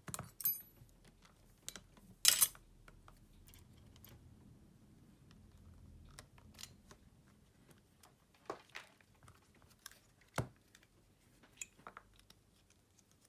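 Small clicks and taps of tools and parts handled during a smartphone screen replacement. A brief high ping comes near the start and a louder crackling rustle about two seconds in.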